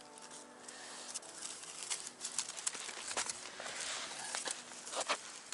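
Wood campfire crackling, with scattered sharp pops over a steady hiss.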